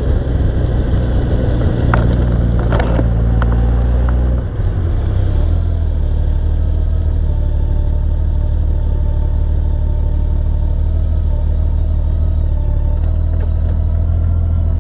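Honda Gold Wing motorcycle riding on a rear car tire, heard from a camera mounted low beside the wheel: a loud, steady low rumble of engine and road noise. A few sharp clicks come about two to three seconds in, and there is a brief dip about four and a half seconds in.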